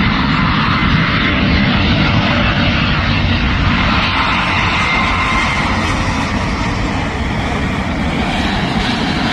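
Boeing 777 twin-engine jet airliner passing low overhead on final approach with its landing gear down: a loud, steady jet engine rumble with a faint whine.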